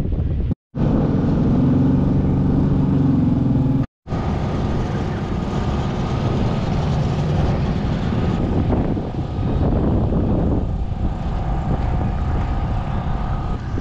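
Race car engine idling steadily, with wind buffeting the microphone. The sound cuts out twice, very briefly, in the first four seconds.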